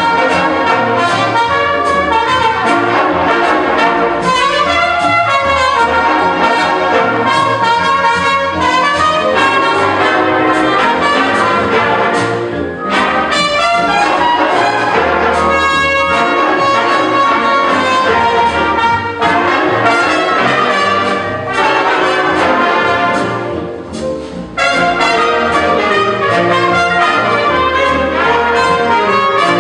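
Big band playing, its trumpets and trombones leading over the saxophones and rhythm section, the music dropping back briefly twice.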